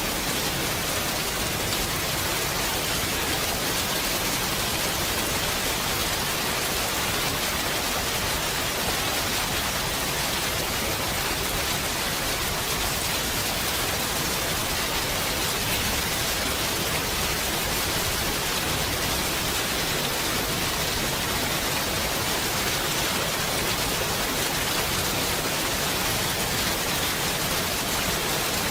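Steady rain falling, a continuous even hiss with no breaks or separate drops standing out.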